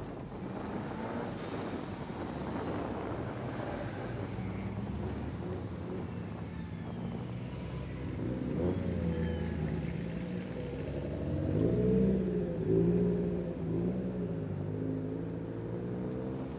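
Car engines running as cars drive slowly past in a line. An engine is revved briefly about eight seconds in, then blipped several times between about eleven and fourteen seconds, the loudest part.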